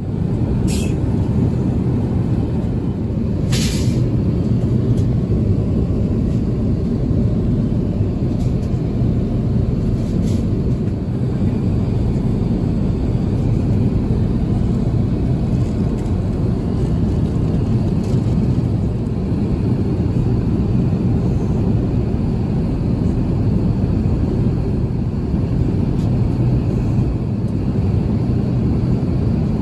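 Steady cabin noise of an Airbus A350-900 at cruise: a constant low rush of airflow and engine drone with a low hum. Two light clicks come in the first few seconds.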